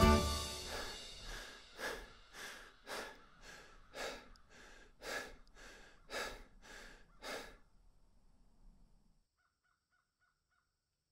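Crow cawing over and over, about a dozen harsh caws at roughly two a second, stopping about seven and a half seconds in.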